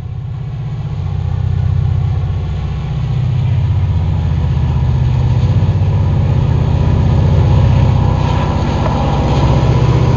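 Diesel locomotive engine sound from HO-scale model trains: a steady, low, throbbing rumble that grows louder over the first two seconds as the train comes onto the bridge, then holds.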